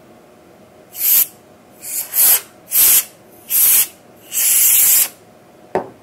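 Can of compressed air giving five short bursts of air, the last one the longest, blowing dust off a fibre-optic connector. A brief click near the end.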